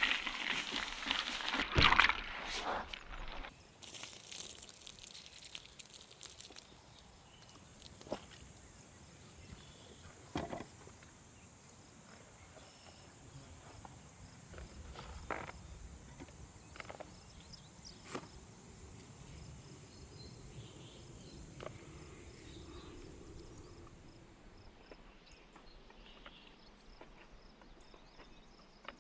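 Outdoor ambience with a faint, steady, high insect hiss, scattered footsteps and a few short knocks. A burst of rustling noise comes in the first few seconds.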